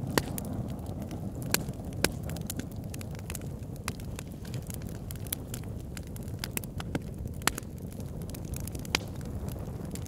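Fireplace fire crackling: a steady low rumble of flames with scattered sharp pops and snaps, a handful of them louder than the rest.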